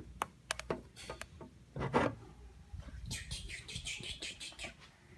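Light clicks and taps of small plastic toy figures and pieces being handled and moved. There is a louder knock about two seconds in and a quick run of light ticks near the end.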